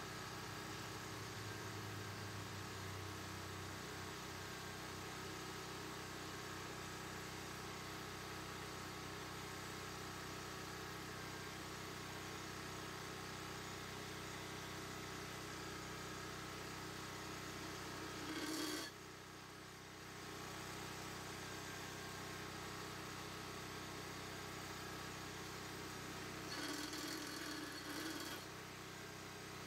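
Small Central Machinery 5-speed 8-inch bench drill press running with a steady motor hum while its bit is fed into a metal bar. There is a brief louder rasping cut about two-thirds of the way through, and a second, longer one near the end.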